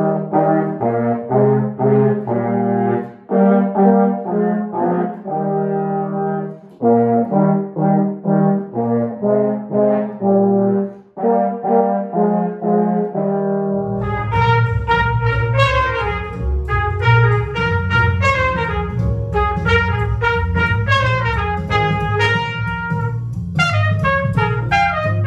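Two tenor horns play a duet in the middle-low register, in short phrases with brief breaks. About fourteen seconds in, it changes to two trumpets playing a higher melody over a steady low accompaniment.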